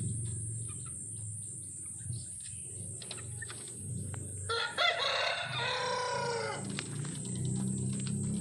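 A rooster crowing once, about halfway through: a drawn-out call of about two seconds that drops in pitch at the end. A low steady hum and a high even hiss run underneath.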